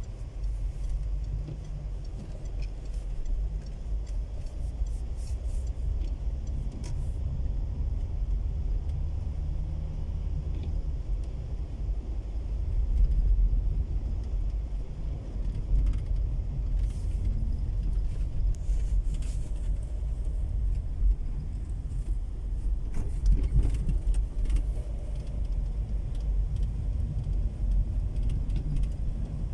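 Low, steady rumble of a car's engine and tyres on a wet road, heard from inside the cabin, with scattered faint clicks and rattles. It swells briefly near the middle.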